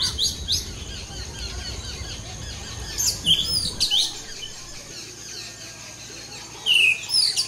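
Small wild birds chirping in short, high, sweeping notes: a few near the start, a cluster about three seconds in, and more just before the end, over a faint steady high hiss.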